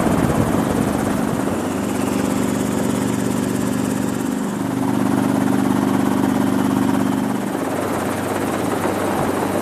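Helicopter engine and rotor heard from inside the cabin: a loud, steady drone of several low tones over a wide hiss, its pitch shifting a few times.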